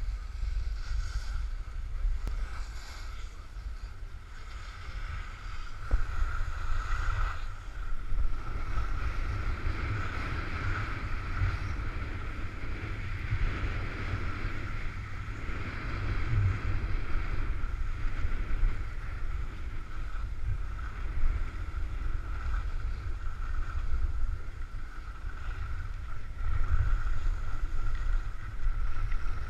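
Wind rumbling and buffeting on the microphone of a camera carried by a downhill skier, with the steady hiss and scrape of skis sliding over packed snow. The rumble swells and dips through the run.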